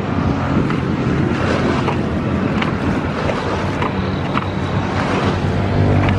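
A motor running steadily with a low, even hum, with wind noise on the microphone.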